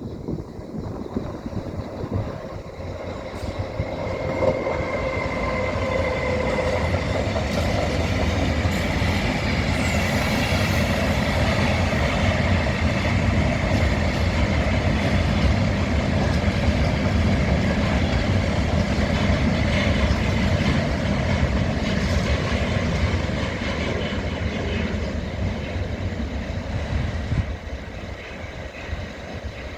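A train passing, its rumble of wheels on the rails building up over several seconds, staying loud through the middle, then fading away.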